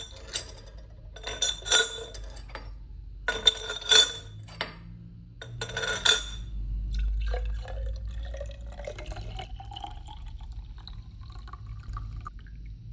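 Four short scraping strokes, then liquid poured into a glass container, its pitch rising steadily as the container fills.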